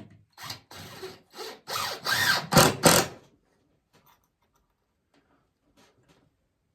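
Power drill driving a self-starting screw into a wooden fence board in about six short bursts over three seconds, the last ones loudest.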